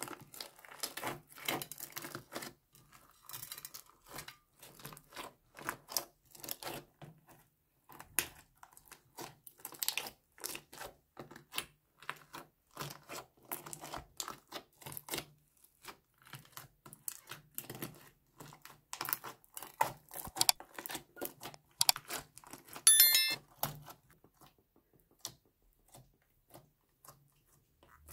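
Slime with small beads and sequins mixed through, kneaded and stretched by hand: a dense run of sticky crackles and pops. One sharp pop, louder than the rest, comes late on, and the crackling thins out near the end as the slime is pressed flat.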